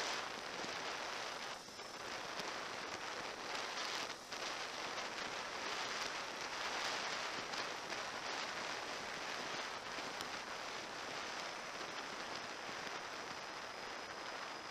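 Steady rushing of running water, dipping briefly twice in the first few seconds.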